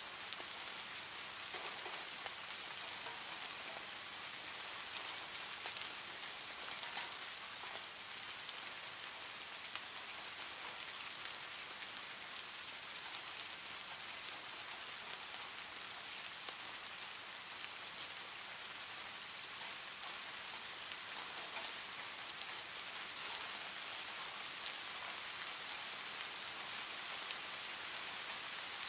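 Steady rainfall: an even, unbroken hiss of rain, with a few faint drop ticks now and then.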